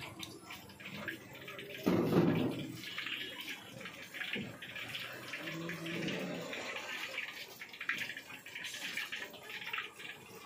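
Battered chicken pakoras deep-frying in a wok of hot oil: a steady sizzling hiss full of small crackles. A short louder noise comes about two seconds in.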